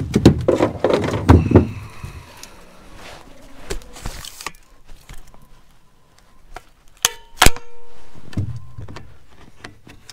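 Knocks, thumps and clicks of handling in a fishing boat as a perch is landed, with a sharp clank that rings briefly about seven seconds in.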